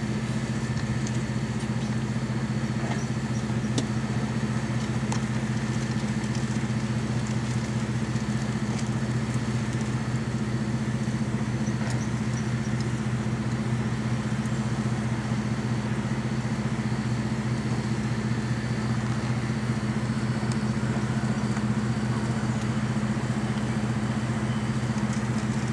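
Oil well pumpjack running, its drive motor giving a steady, unbroken low hum.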